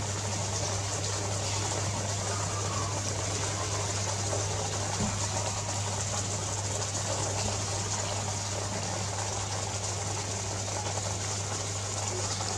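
Steady low hum under a constant hiss of background noise, unchanging throughout.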